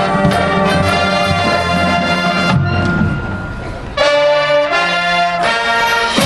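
High school marching band playing, brass over drums. About two and a half seconds in the full sound falls away to a quieter, fading held tone, then about four seconds in the brass section comes back in suddenly with loud, sustained chords.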